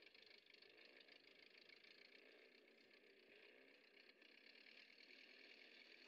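Near silence: a faint, steady hiss.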